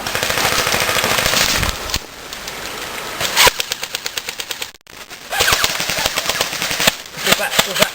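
Airsoft guns firing in rapid full-auto strings, a fast run of sharp snapping shots, with a brief pause a little past the middle.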